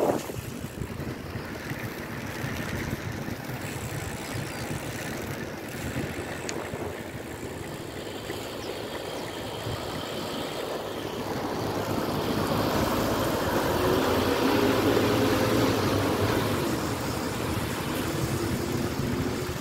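Wind on the microphone and traffic noise while riding on a wet road. A nearby van's engine gets louder over the second half.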